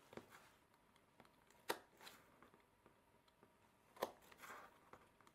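Craft knife carving a small piece of scrap wood on a cutting mat. Mostly near silence, with a few faint sharp clicks as the blade cuts through; the two clearest come about 1.7 and 4 seconds in.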